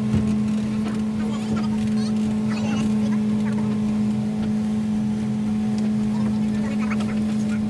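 A luxury motorboat's engine running steadily: a constant, even-pitched hum that does not rise or fall.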